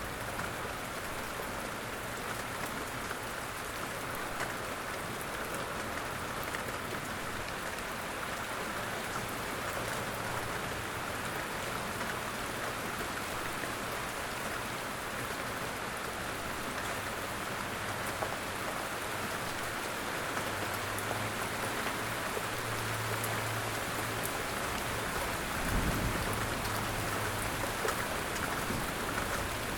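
Steady light rain falling in woodland: an even patter of many drops. A brief low thump comes near the end.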